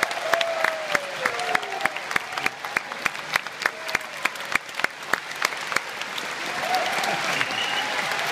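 Concert audience applauding, with loud sharp claps close by at a steady rate over the clapping of the crowd, and a few voices calling out. The applause swells near the end.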